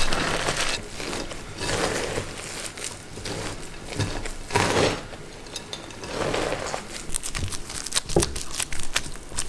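Crinkling and rustling handling sounds in repeated bursts, with a few sharp clicks near the end.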